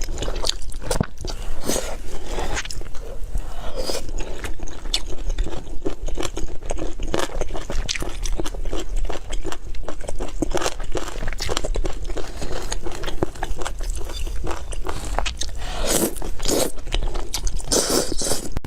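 Close-miked crunching and chewing of crisp food: a run of irregular crunchy bites and chews with no pause.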